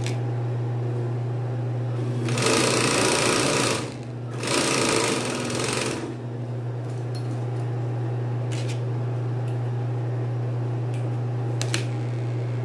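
Industrial coverstitch machine (Bracob galoneira) stitching a hem in two short runs, each about a second and a half, about two and four and a half seconds in, over the steady hum of its running motor. A couple of light clicks follow near the end.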